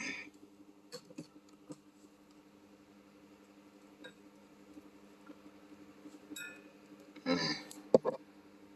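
Small clicks and scrapes of a tester's metal tip being pushed and worked into the holes of a circuit board to widen them, with a longer scrape near the end and one sharp click, the loudest sound. A faint steady hum runs underneath.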